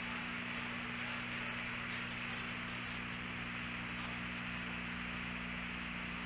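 Steady hiss and hum of the Apollo lunar-surface radio downlink between transmissions, an open channel carrying no voices.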